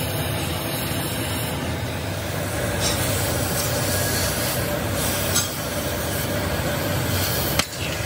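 Oxy-fuel cutting torch hissing steadily as it cuts through a steel truck leaf spring, with a couple of brief sharp knocks in the second half.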